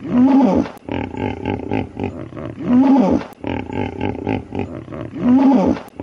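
Hippopotamus calling: a fast run of low pulsing grunts broken about every two and a half seconds by a loud honk that rises and falls in pitch, three times.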